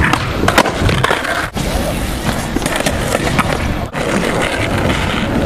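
Skateboard wheels rolling on rough asphalt, with several sharp wooden clacks of the board being popped and landing during flat-ground flip tricks.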